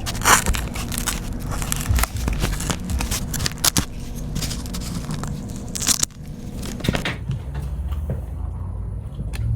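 Irregular crackling and scraping with many sharp clicks, like close-up handling or tool work. It gets quieter after about six seconds.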